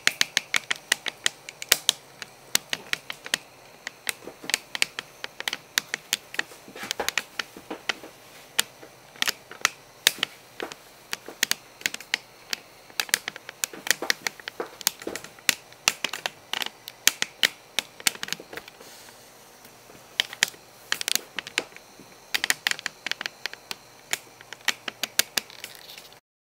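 Rapid, irregular sharp clicks and taps, several a second, in the manner of keyboard typing, thinning out briefly about two-thirds of the way through.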